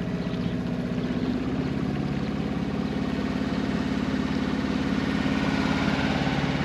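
Sailboat's inboard engine running steadily under way, its note shifting about a second and a half in and growing slightly louder.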